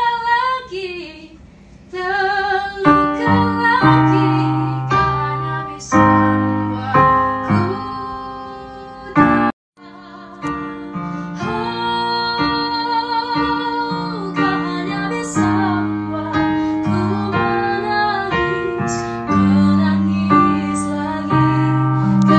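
A woman singing with a wavering, vibrato voice while playing sustained chords on a piano. The sound cuts out completely for a moment about ten seconds in, then the song carries on.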